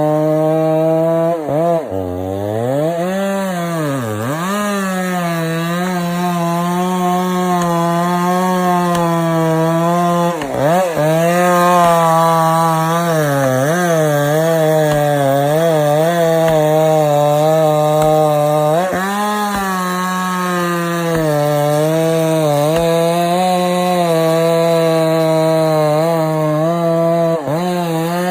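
Chainsaw running at high revs while cutting through a large log. The engine note sags sharply several times as the chain bogs down under load and climbs back each time.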